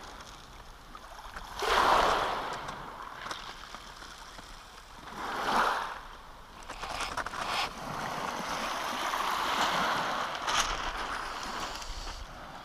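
Small waves breaking and washing up a shingle beach, one surge about two seconds in, another about five seconds in, then a longer wash near the middle.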